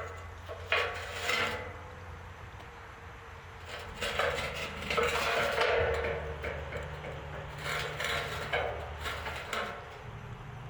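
Metal clanking and scraping in three bouts, the longest from about four to six and a half seconds in, over a steady low hum.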